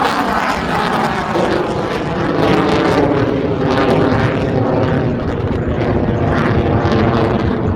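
Loud, continuous jet noise from an F-22 Raptor's twin F119 turbofan engines as the fighter flies past.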